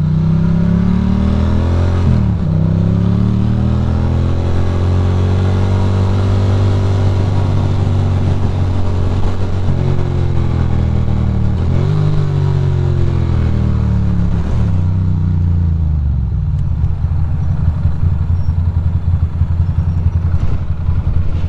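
Ducati Monster's V-twin engine riding through traffic. Its note rises and falls with the throttle several times, and wind rushes over the microphone. About sixteen seconds in, the steady engine note gives way to a low, fluttering rumble.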